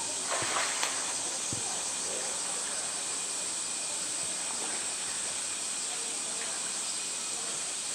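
Steady high drone of an insect chorus, with a few short splashes and knocks in the first two seconds as a polar bear shoves a plastic drum about in pool water.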